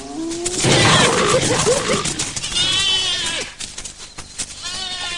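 Spotted hyenas and lions clashing: a burst of harsh snarling and growling, then high, quavering hyena cries about halfway through and again near the end.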